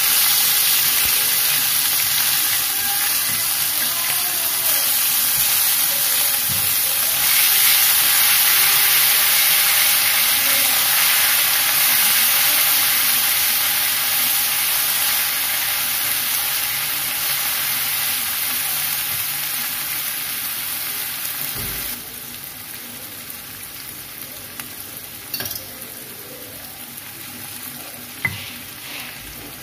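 Ground spice paste sizzling loudly in hot oil in a frying pan as it is stirred with a spatula. The sizzle starts suddenly, slowly eases, and drops to a quieter level about three-quarters of the way through, with two light knocks near the end.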